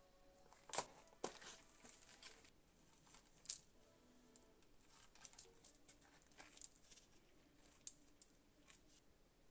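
Plastic packaging of a garden cress punnet crinkling and clicking as it is handled, with a few sharp clicks in the first few seconds. Near the end, scissors snip through the cress stems.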